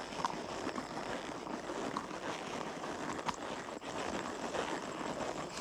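Horse walking along a trail under a rider: a steady rustling noise of its movement, with a few faint clicks.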